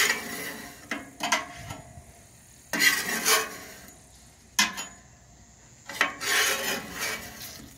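A flat metal scraper dragged across a hot, thick steel griddle plate in about five rasping strokes, scraping cooked-on burger residue off the surface.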